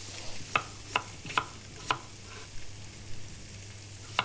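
Kitchen knife cutting through peeled potato onto a wooden chopping board: sharp knocks of the blade on the board about every half second for the first couple of seconds, and one more near the end. Under them, a faint steady sizzle of diced onion, carrot and swede sweating in butter in a pan.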